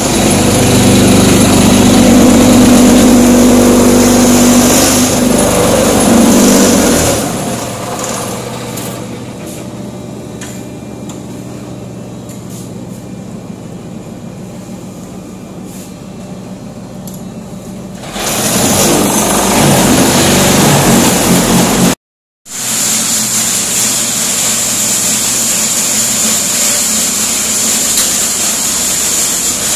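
Concrete block-making machine running: a loud mechanical drone with a steady hum for the first several seconds, then a quieter clatter with scattered knocks, loud again a few seconds later. After a brief dropout it settles into a steady machine hum with a high whine.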